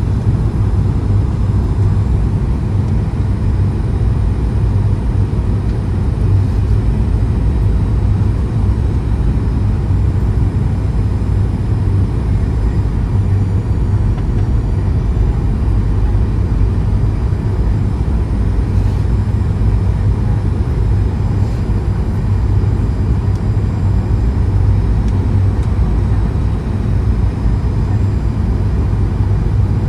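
Steady low rumble of a Boeing 737-900ER's engines and airflow heard inside the passenger cabin, unchanging throughout.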